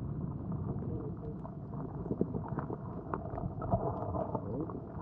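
Muffled underwater sound from a camera submerged in a rocky tide pool: a low churn of moving water with many small scattered clicks and knocks.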